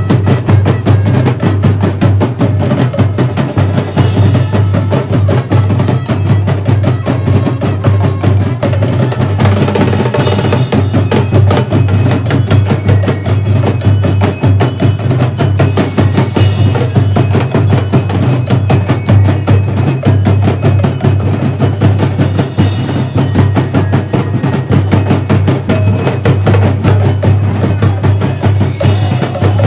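Drum and lyre band playing a fast, steady marching beat on snare drums and bass drums, with cymbal crashes and bell lyre.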